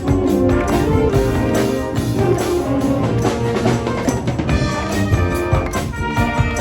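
Marching band playing: brass holding sustained chords over a busy drum kit and percussion beat with frequent strikes.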